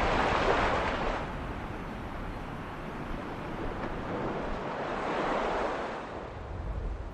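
Sea surf washing on a rocky shore: a rushing noise that swells twice, about half a second in and again around five seconds in.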